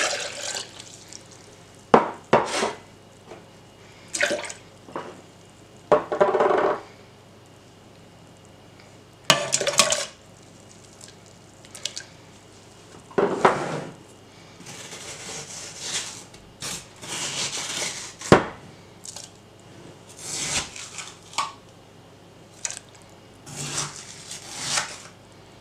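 Scattered clinks, knocks and scrapes of ingredients going into a stainless steel blender jug. Water pours in briefly at the start, then kiwi slices are tipped in and a spoon scoops frozen strawberry purée from a plastic tub into the jug.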